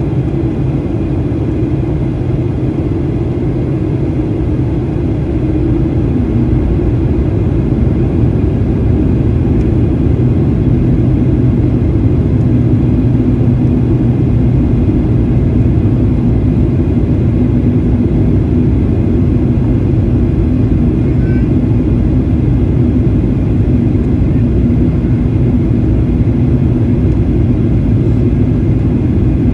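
Cabin noise of a Boeing 737-800 in flight, heard from a window seat beside the wing: a steady low rumble of its CFM56-7B engine and the airflow, with an engine tone that drops slightly in pitch about six seconds in.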